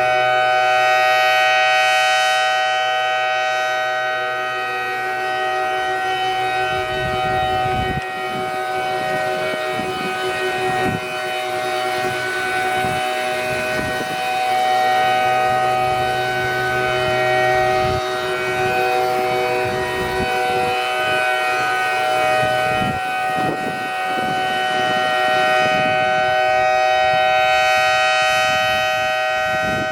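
Outdoor warning siren sounding a steady chord of several tones at constant pitch, its level swelling and fading slowly, with low rumbles underneath from about seven seconds in.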